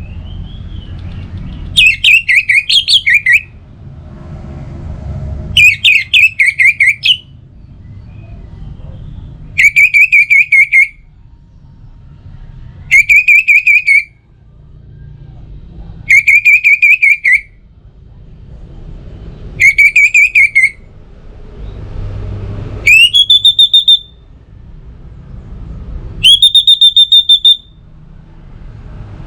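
Orange-headed thrush song phrases repeated about every three and a half seconds, eight in all. Each is a loud, quick run of whistled notes lasting about a second and a half. The last two phrases sweep up and then hold a higher note. A low background rumble sits beneath.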